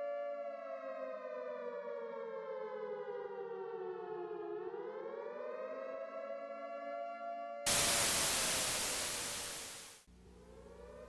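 Civil defense siren wailing, its pitch sinking slowly for about four and a half seconds, then rising back and holding. About two-thirds of the way through, a loud burst of static hiss cuts in over it and fades away over about two seconds, then the siren rises again.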